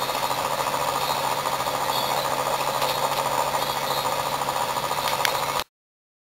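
Homemade iron-core axial flux pulse motor running: a loud, steady, fast buzzing rattle from the pulsed coils and spinning rotor, with a low hum underneath. It stops abruptly near the end.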